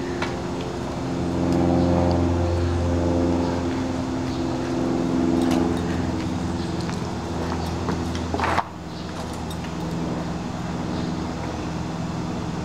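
A motor running steadily with a low hum, fuller for several seconds, broken by one sharp knock about eight and a half seconds in.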